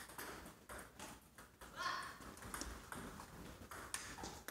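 Table tennis rally: the ball clicking off the table and the paddles in quick, irregular ticks, a few each second.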